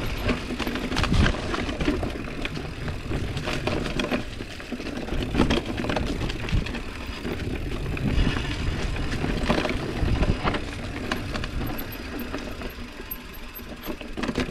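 GT Avalanche mountain bike riding fast down a dirt trail: tyres running over dirt and roots, with frequent rattles and knocks from the bike over bumps. Wind buffets the microphone throughout.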